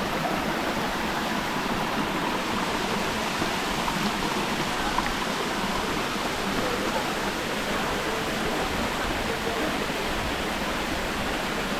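Waterfall and stream water rushing steadily, with faint voices of people nearby.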